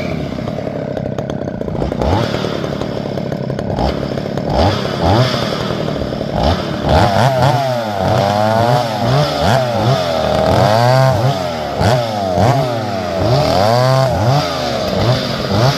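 Chainsaw cutting firewood. The engine runs fairly evenly at first, then from about seven seconds in its pitch rises and falls over and over, about once a second.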